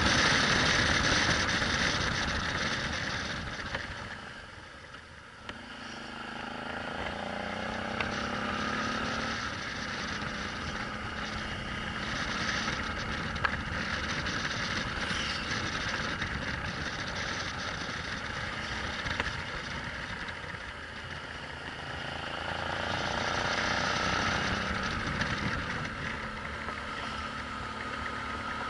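Suzuki V-Strom 650's V-twin engine and wind rush heard from on board the moving motorcycle. The engine drops back and quietens about five seconds in, then rises in pitch as the bike accelerates, and holds steady before picking up again near the end.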